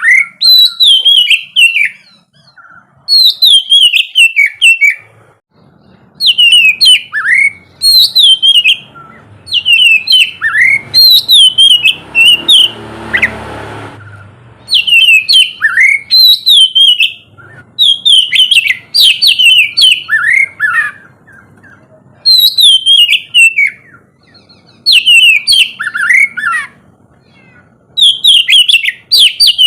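Oriental magpie-robin (kacer) singing: phrases of quick, varied whistles and chirps, each about two seconds long, repeated with short pauses. About halfway, a brief swell of noise rises under the song.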